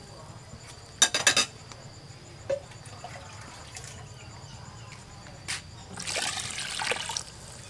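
Water poured from a bowl into a metal pot of chicken broth, splashing and gurgling for just over a second, starting about six seconds in. Near the start, a quick run of sharp clinks.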